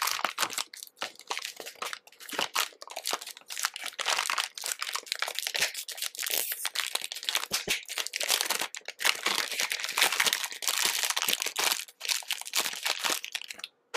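Clear plastic film crinkling as it is pulled off a two-pack of Play-Doh Plus tubs: a dense run of fast crackles that stops just before the end.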